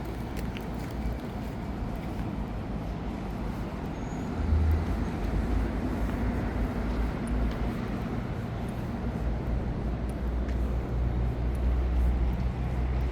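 Road traffic on a busy city street: a steady rumble of passing vehicles, which gets louder about four and a half seconds in and swells again near the end as heavier vehicles go by.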